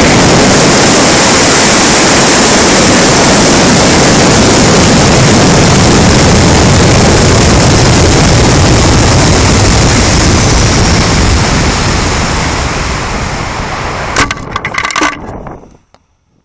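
Aerotech J415W White Lightning rocket motor burning with a loud, steady roar, which fades away over the last few seconds with some crackling.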